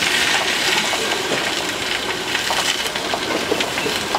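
Vegetables sizzling in a hot wok as they are stir-fried, a steady hiss that is loudest at the start, with a few light clicks.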